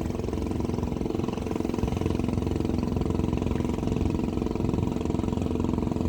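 A boat's engine running steadily, growing slightly louder.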